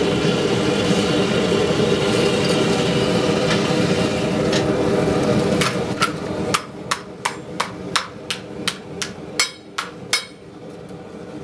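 A gas forge's burner roars steadily. About six seconds in, a hand hammer starts striking a red-hot steel frying-pan blank held in tongs on a round forming block, sharp ringing blows about three times a second, dishing the pan.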